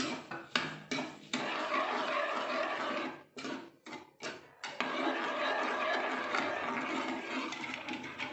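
A ladle stirring semolina halwa as it boils with water and sugar in a metal kadhai: a steady bubbling, sizzling hiss, broken a little after three seconds in by a run of short quick ladle strokes before the hiss resumes.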